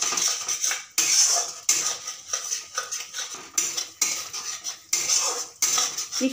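Metal spatula scraping and stirring a thick cashew, melon-seed and green-chilli masala paste around a metal kadai in repeated strokes, as the paste is sautéed down.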